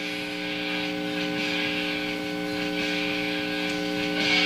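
Steady mains hum from a Fender Bandmaster tube amplifier, with faint music coming through its speaker: a CD player's audio carried by an infrared LED held at the preamp tube's grid and picked up without contact. The music grows louder near the end.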